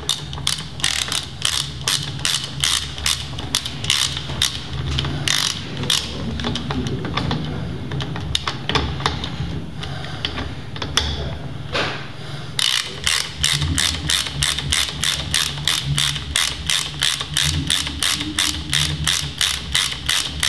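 Hand ratchet wrench clicking in quick, evenly spaced clicks as a nut on a motorcycle fork cartridge is run down. The clicking thins out for several seconds in the middle and comes back thick and fast about two-thirds of the way in, over a low steady hum.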